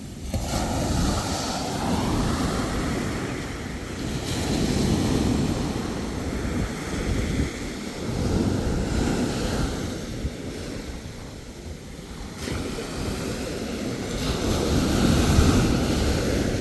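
Ocean surf: waves breaking and washing in, the rushing noise swelling and fading every few seconds.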